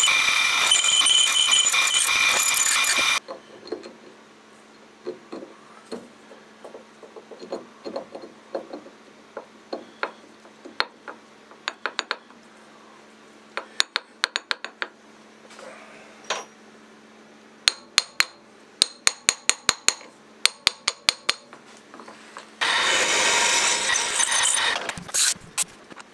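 A bench mill's spindle drilling bolt holes through a faceplate into a four-jaw chuck: a steady loud cutting noise for about three seconds, then again a few seconds before the end. In between, the machine hums steadily while scattered clicks and a quick run of sharp clicks come from handling the work.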